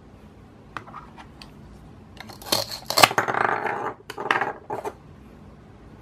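Velcro tearing as the two halves of a toy plastic corn cob are pulled apart: a crackling rip lasting almost two seconds from about two seconds in, then a shorter one. A few light plastic clicks come before it.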